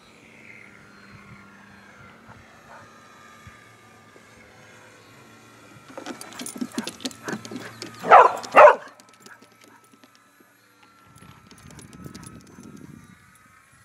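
A dog barks twice, sharply, about eight seconds in, just after a couple of seconds of clicks and knocks. Under it, the faint whine of a radio-control aerobatic plane's motor rises and falls in pitch as the plane flies.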